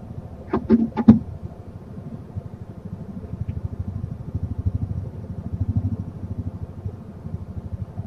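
Three sharp knocks in quick succession about half a second to a second in, the last the loudest, as a barn owl clambers onto the roof of a wooden nest box. A steady low rumble runs underneath.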